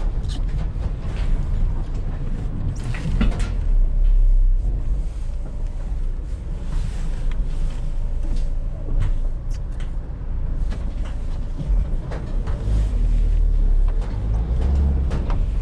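Van driving, heard from inside the cab: a steady low engine and road rumble, with loose scrap metal in the back rattling and knocking throughout.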